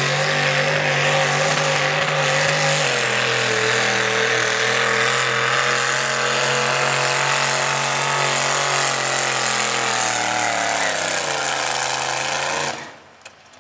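Big-block engine of a rail-frame pulling tractor running loud and steady as it drags the weight sled down the track. Its pitch dips slightly about three seconds in, falls as the tractor slows near the end, and then cuts off suddenly.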